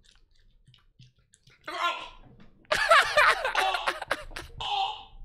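Faint chewing on a chicken foot, then a man gagging and retching on the mouthful while another man laughs loudly. The loudest stretch begins a little under three seconds in.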